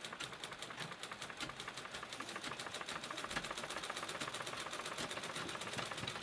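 Sewing machine running steadily, with a rapid, even clicking of the needle mechanism.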